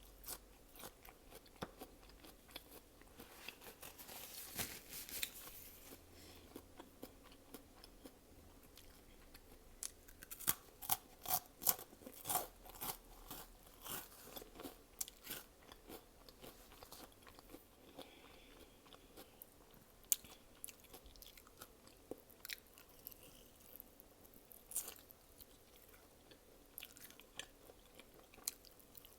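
Close-miked chewing and crunching of food by a person eating, with many sharp mouth clicks and smacks throughout and a run of louder crunches a little before the middle.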